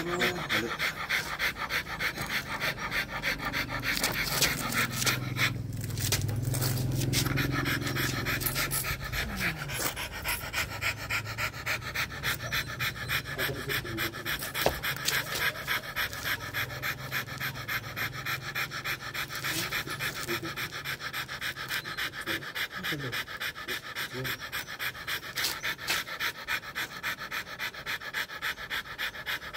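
Rottweilers panting hard with their mouths open, a quick, even rhythm of breaths.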